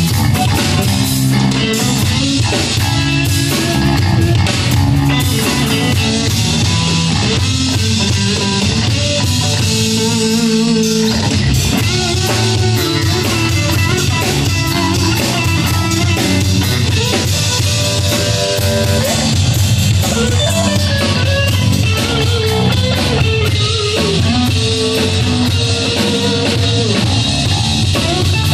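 A band playing rock music on guitars and a drum kit, with steady bass and cymbal strokes throughout.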